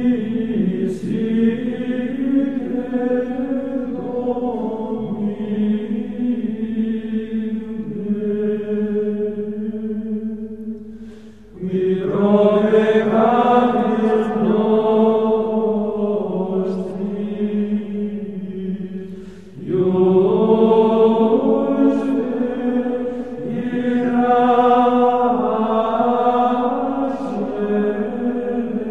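Background music of voices singing a slow chant in long held phrases, with short breaks between phrases about 11 and 19 seconds in.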